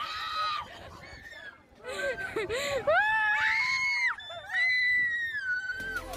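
A girl screaming on a fairground ride: a few short, wavering screams, then two long, high screams, each held for over a second.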